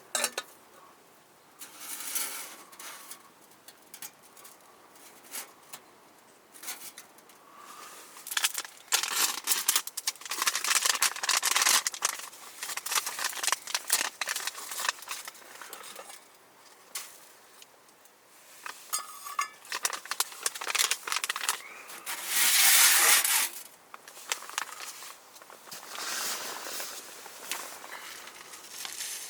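Irregular rustling and crinkling with scattered clicks, like material or gear being handled, with a louder dense rustle a little over twenty seconds in.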